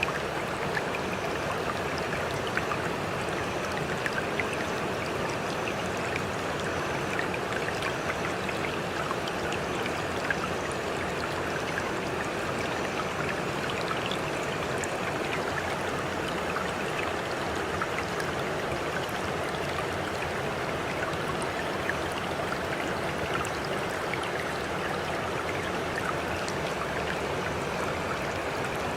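Running water, like a stream, flowing steadily and evenly, with small splashes and droplet ticks scattered through it.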